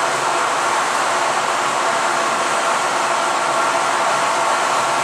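An E.402 electric locomotive's cooling fans running: a steady, even whir with a few faint held tones in it.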